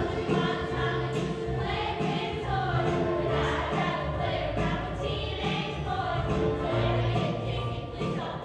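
A youth choir of children and teenagers singing together in chorus over instrumental accompaniment with a steady bass line.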